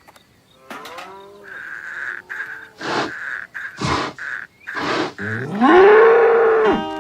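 Cow mooing: one long moo near the end that rises in pitch and then holds, the loudest sound, after a few shorter animal calls and noises.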